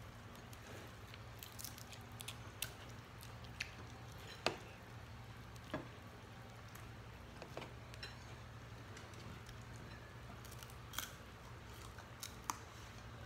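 Quiet eating at the table: scattered light clicks and taps of fingers and dishes, with soft squishing and chewing as people eat fish and greens by hand. The sharpest click comes about four and a half seconds in, over a steady low hum.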